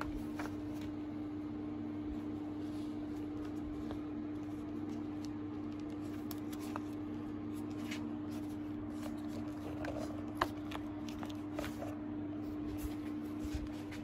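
Wires of a bundled wiring harness and its heat-shrink sleeve being handled, giving light rustles and small clicks, with one sharper click about ten seconds in, over a steady low background hum.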